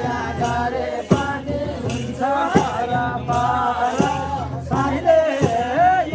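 Nepali kaura folk song: voices singing a melodic line over drum strokes and jingling percussion.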